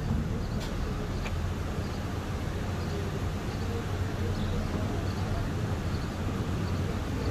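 Steady low background hum and hiss, with a few faint clicks in the first second and a half.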